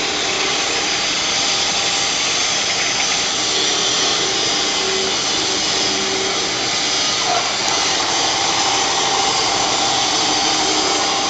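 Plastic cup-ring cutting machine running, a steady, even mechanical noise.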